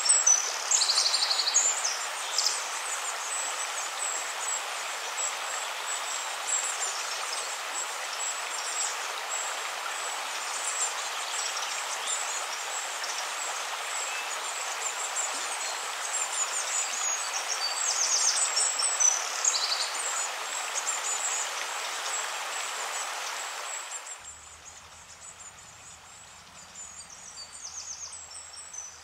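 Nature ambience: a steady rushing noise like a stream, with repeated bird chirps and short trills. About 24 seconds in the rushing drops away suddenly, leaving quieter chirps.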